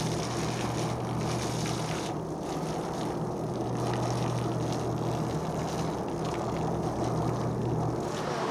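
A boat's motor running with a steady low hum, and a hiss over it that fades about two seconds in and comes back near the end.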